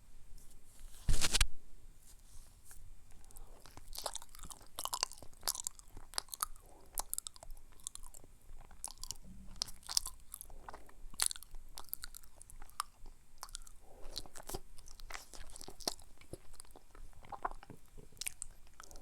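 Close-miked chewing of banana: many short mouth clicks through the whole stretch, with one brief loud noise about a second in.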